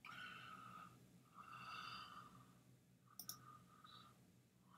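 Near silence, with faint breathy sounds from a person's voice and one computer mouse click about three seconds in as an answer is selected.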